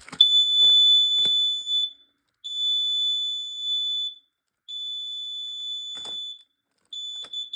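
Combination explosive-gas and carbon monoxide alarm sounding its test alarm: a loud, high-pitched steady tone in long beeps of almost two seconds each, separated by short half-second gaps.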